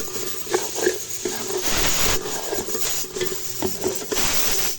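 A spoon stirring and scraping ground spices frying in the onion-tomato masala, knocking against the pot now and then in sharp clinks.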